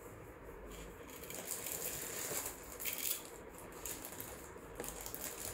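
Faint rustling and light clicking of a bead necklace being handled and laid out on cloth.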